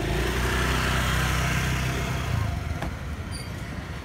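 A vehicle engine running steadily with a low hum, growing quieter about two and a half seconds in.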